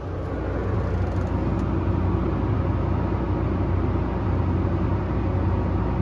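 Steady low engine rumble of harvest machinery, heard from inside a tractor cab.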